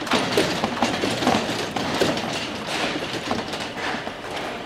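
Steel frame of a fairground ride clanking and squeaking during assembly, with irregular metal knocks and a few short squeals.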